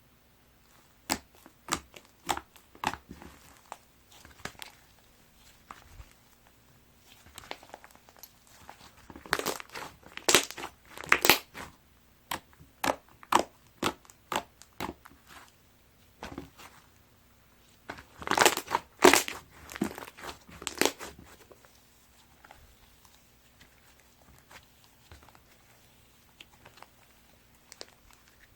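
Chocolate sherbet cloud slime being squeezed and pressed by hand, giving sharp, crunchy, crinkly crackles in irregular bursts. The crackling is loudest about a third of the way in and again about two-thirds through, then thins out to scattered small pops.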